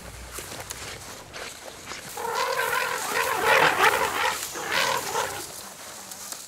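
An African elephant calling: one call of about three seconds, starting about two seconds in and swelling and fading as it goes.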